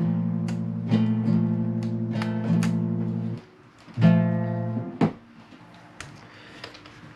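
Acoustic guitar strummed: several chords left ringing, which break off about three and a half seconds in, then one more chord that dies away about a second later. After that there are only a few faint clicks.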